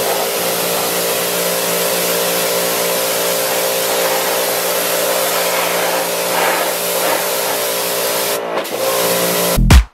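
Pressure washer spraying the undercarriage of a truck: a steady hiss from the jet with the washer's motor humming at a steady pitch underneath. The spray cuts out briefly near the end, and loud electronic dance music comes in just before the close.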